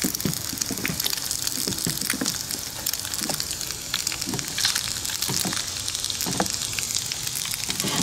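Eggs sizzling and crackling in hot oil in a small skillet made from a tin can. A thin hand-carved spatula scrapes against the can's metal bottom in short strokes about once a second as it works under the eggs.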